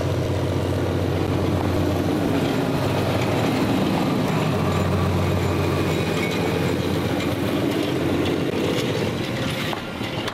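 Narrow-gauge Lxd2 diesel locomotive passing close by, its engine giving a steady low drone that is loudest as it draws level. Its passenger coaches then roll past on the rails.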